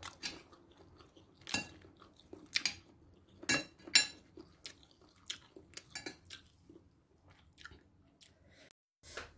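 A metal spoon clinking and scraping against a ceramic bowl while food is scooped out: a string of separate clicks and knocks, the loudest two about three and a half and four seconds in.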